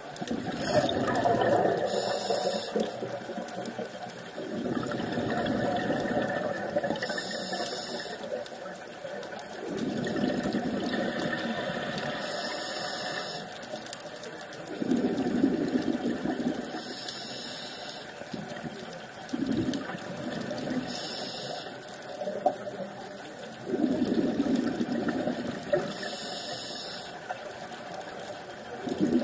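Scuba diver breathing through a regulator underwater: six short hissing inhalations about five seconds apart, each followed by a longer rush of exhaled bubbles.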